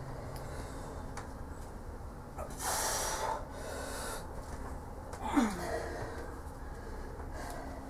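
Forceful breaths of effort from a person straining to bend a steel bolt by hand: a sharp exhale about three seconds in, and a shorter one with a brief falling grunt a little past five seconds.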